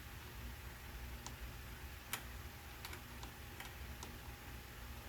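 Faint, irregular small clicks and ticks, about six of them spaced unevenly, over a low steady hum.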